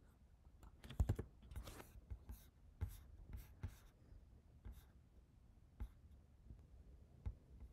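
Faint typing and clicking on a laptop keyboard. There is a quick run of keystrokes about a second in, then single taps spaced roughly a second apart.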